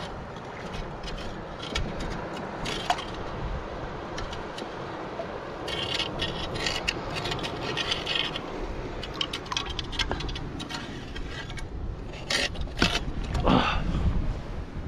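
Wind rumbling on the microphone, with scattered clicks and scraping sounds close by among the rocks and seaweed, which grow busier about six seconds in and again near the end.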